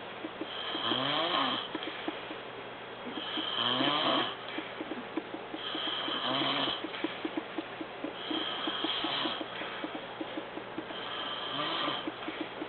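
An exhausted man snoring in deep sleep, about five snores in regular cycles roughly every two and a half seconds. Each snore is a fluttering rattle with a pitch that slides up and then down.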